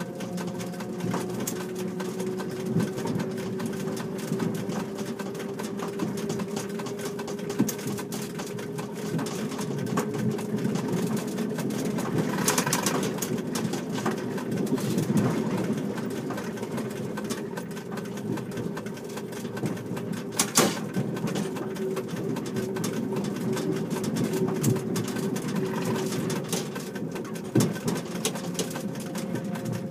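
Petit Train Jaune, the narrow-gauge electric train of the Ligne de Cerdagne, running: a steady motor whine that slowly rises in pitch over a rumble with scattered clicks and rattles, and one sharp knock about twenty seconds in.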